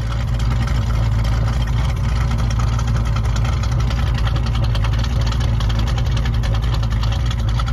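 Car engine idling steadily, heard at its exhaust tailpipes: an even, low exhaust note.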